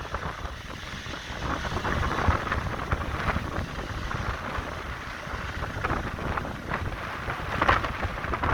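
Strong wind buffeting the microphone in gusts over a constant low rumble.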